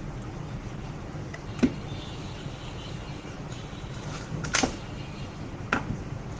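Three short sharp clicks of small hard parts being handled and set down on a work surface, the second a quick double tap, over a steady low hum.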